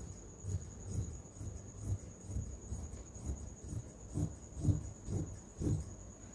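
Scissors cutting through suit fabric, snipping at about two strokes a second, each stroke a dull low thud, over a steady high-pitched whine.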